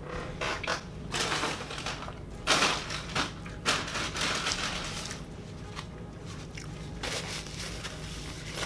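Paper napkins crinkling and rustling as they are pulled out and handled, in a series of short crackly bursts, the loudest about two and a half to four seconds in.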